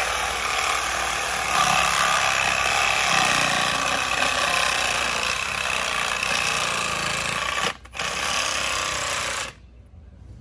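A power saw running at full speed through a cut in PVC sewer pipe. It breaks off for a moment about three-quarters of the way through, runs on, then cuts out sharply about a second before the end.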